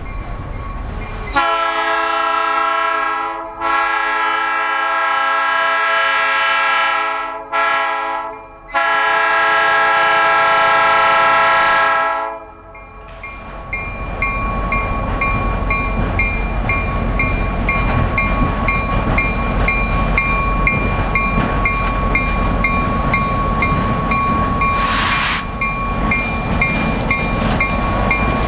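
Diesel locomotive's multi-chime air horn blowing the grade-crossing signal: long, long, short, long. The train then passes close by with steady rail rumble and rhythmic wheel clicks over the joints, a thin steady squeal and a brief hiss near the end.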